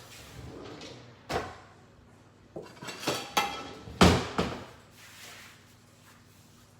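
A series of knocks and clatters of things being handled in a kitchen: one knock about a second in, a quick run of them a little later, and the loudest bang about four seconds in.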